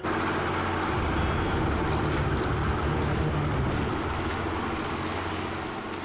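Speedboat's outboard engine running at speed, with the rush of its wake on the water. The sound is steady and eases a little towards the end.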